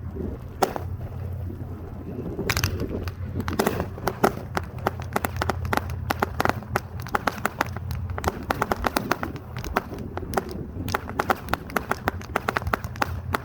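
Fireworks going off in rapid crackling pops, many sharp reports a second, growing denser about two and a half seconds in, over a steady low rumble.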